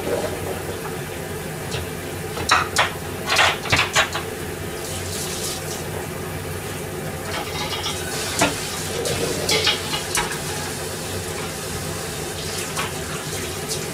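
A metal utensil clinking and scraping against a pan of boiling noodles in two short flurries, a few seconds in and again about eight seconds in, over a steady background hum.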